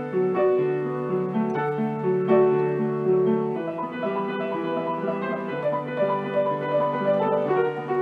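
Background piano music: a melody of struck notes over held low notes.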